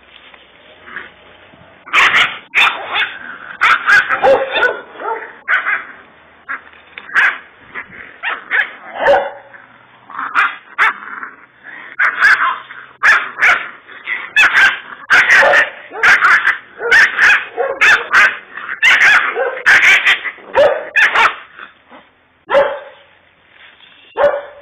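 Kangal puppy barking and yipping in quick, sharp bursts while play-fighting, with short whimpers among them. The bursts start about two seconds in, come thick and fast, and ease off for a moment near the end.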